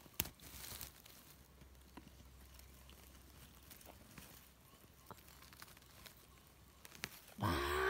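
A sharp snap just after the start, then faint rustling and small crackles of moss, twigs and leaf litter as a hand digs a mushroom out of the ground at the base of a fallen branch. A short voice sounds near the end.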